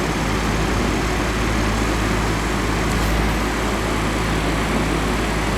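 The plastic-housed PSC motor of a 1991 Windmere DF-16 oscillating table fan running steadily with its housing opened up: a steady electric hum under a constant rush of air.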